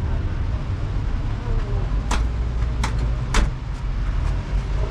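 Steady low rumble of a motor vehicle running, with four sharp knocks or rattles about two to four seconds in.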